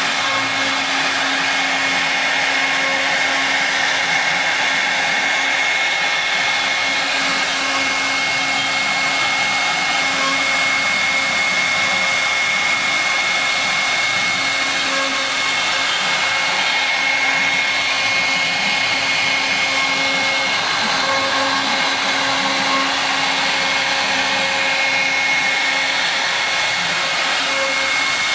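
Tiger2000 Prof 500x400 CNC router spindle running steadily with a constant high whine over a steady hiss, milling a bas-relief into wood.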